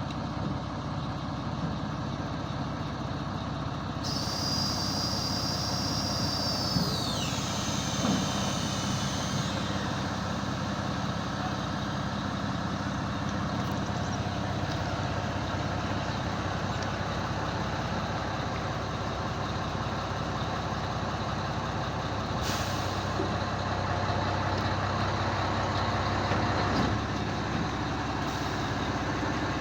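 Mobile crane's diesel engine running steadily. A high whine sets in about four seconds in, drops in pitch and stops near ten seconds, and a short hiss of air comes about twenty-two seconds in.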